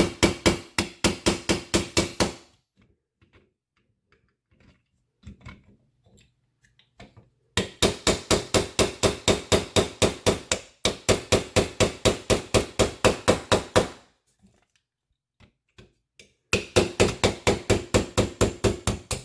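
Small hammer tapping a pin punch in quick, even strokes, about six a second, in four runs with short pauses between them, driving a roll pin out of a CZ P10F pistol frame.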